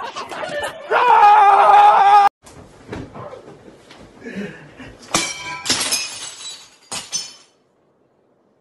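A loud held cry first, cut off abruptly. Then a crash with glass shattering and ringing, a second crash just after, and a last smaller crash about seven seconds in.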